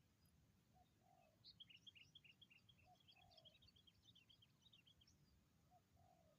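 Faint spotted dove cooing: low phrases of a short note then a longer drawn-out coo, repeated about every two and a half seconds. Through the middle runs a quick series of high, thin chirps from a small bird.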